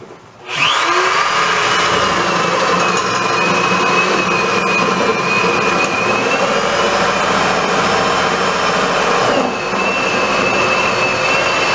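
Electric drill boring up through the wooden top plate of the wall framing to make a feed hole for new wiring. The motor runs steadily under load with a wavering high whine and eases briefly about nine and a half seconds in before picking up again.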